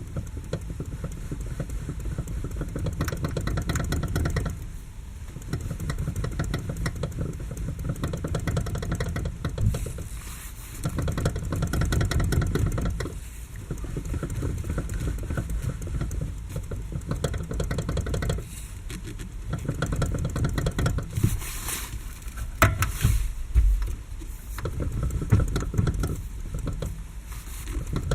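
Steering rack and electric power steering of a Lada Kalina knocking as the steering wheel is rocked quickly back and forth: runs of rapid knocks and clicks lasting a few seconds, with short pauses and a few sharper, louder knocks in the second half. The loudest, clearest clicks come from the electric power steering unit and the rest from a worn rack, which the owner fears may be finished.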